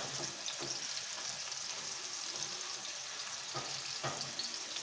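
Marinated chicken breast steaks sizzling steadily in hot oil in a frying pan over medium heat, with two light knocks near the end.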